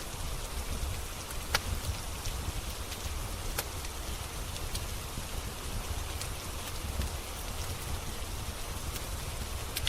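Steady rain hiss over a low rumble, with scattered sharp crackles and pops from a wood fire, the loudest about one and a half seconds in and another near four seconds.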